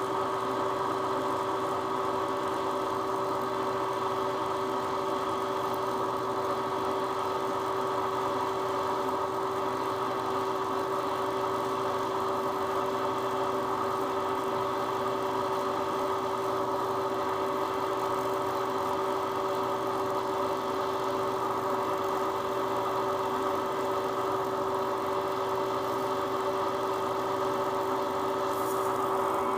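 Knee milling machine's spindle running at its fastest speed, about 2800 RPM, turning a sensitive drill chuck while a small drill bores a hole: a steady machine whine of several fixed tones that does not change.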